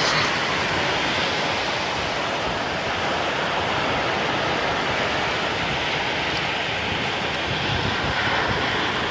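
Steady rushing noise of wind and surf, even throughout with no distinct events.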